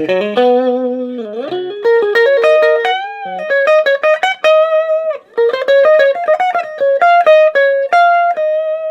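Electric guitar played through a tube Fender Vibrolux Reverb clone amplifier (AA964 circuit) on the test bench: single-note lead lines with quick picked runs and string bends, ending on a held note that rings out. The amp is running clean and working.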